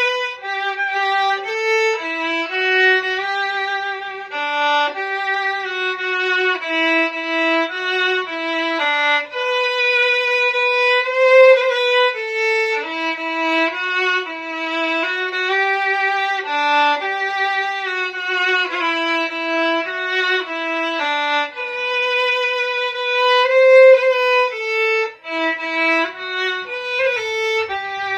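Solo fiddle playing a slow melody in triple time, one bowed line moving note to note with no accompaniment.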